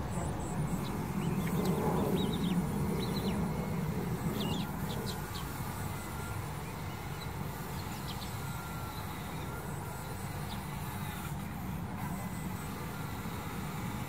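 Scattered short chirps from a flock of Eurasian tree sparrows, mostly in the first few seconds, over a steady low rumble. A faint, high pulsing insect buzz is heard at the start and again near the end.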